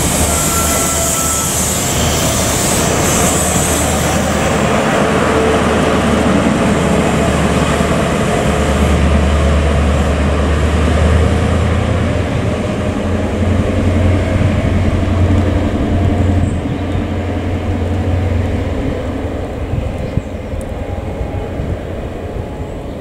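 Class 43 HST power cars' diesel engines pulling a train away, a steady deep engine drone with wheel and rail noise over it, fading in the last few seconds as the train recedes.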